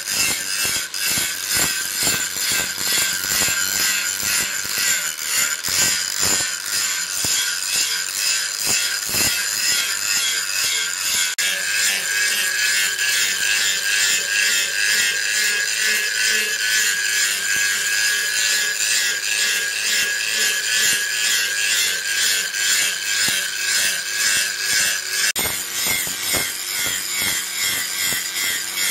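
Handheld angle grinder with a red abrasive disc grinding a steel axe head forged from leaf spring, the motor holding a steady high whine under the grinding noise of the disc on the steel.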